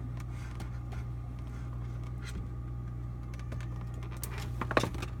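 A steady low hum, with a few light clicks and crinkles near the end, like a plastic salad container being handled.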